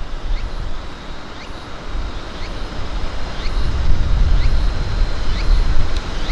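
Wind buffeting the microphone: a gusty low rumble that grows stronger about three seconds in. A faint short chirp repeats about twice a second behind it.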